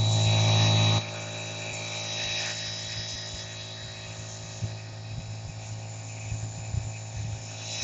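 Puma 12-volt, 3/4 hp air compressor running steadily under load as it fills the tyres, a hum with a thin high whine. A louder low hum drops away suddenly about a second in.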